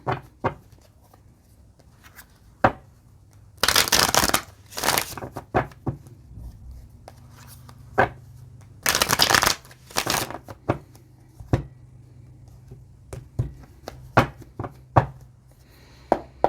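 A deck of tarot cards being shuffled in several bursts of rustling, with sharp taps and clicks of cards between them.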